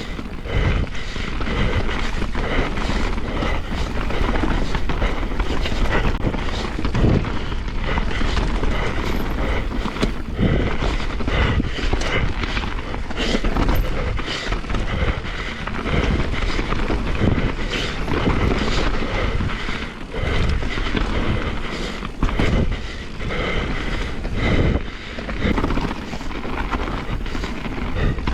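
Mountain bike descending a rough dirt trail: the tyres roll over dirt and the bike rattles and knocks irregularly over bumps, with wind on the microphone.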